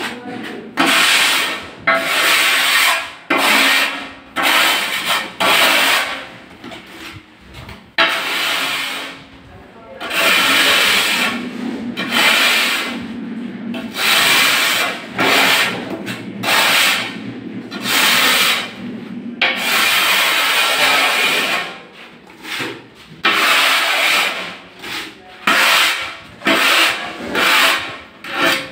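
Steel notched trowel scraping tile adhesive across the back of a ceramic tile in repeated back-and-forth strokes, spreading the adhesive and combing it into ridges. The strokes come shorter and quicker near the end.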